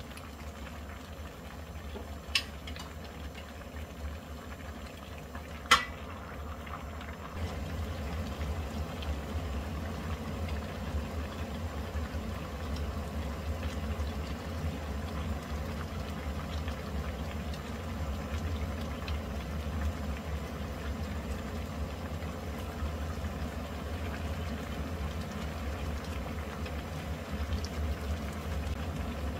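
Pot of spicy rockfish stew bubbling at a steady boil. Two sharp clicks in the first six seconds, the second the louder.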